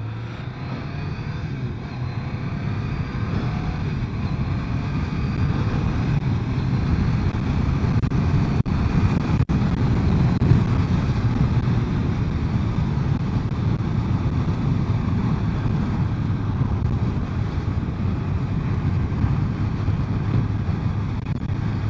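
A BMW K1200 motorcycle's inline-four engine running steadily as the bike is ridden, mixed with wind noise. The sound drops out briefly twice, about nine seconds in.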